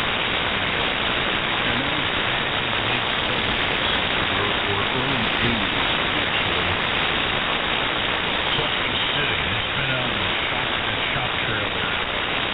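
Ham radio receiver tuned to the 75-metre band in single-sideband mode, its audio a loud, steady rushing hiss of local radio-frequency interference, with faint sideband voices barely showing through under the noise.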